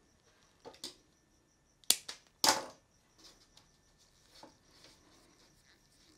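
Automotive wiring harness being handled and pulled apart by hand: a few sharp snaps and clicks, the loudest about two and a half seconds in with a short rasp after it.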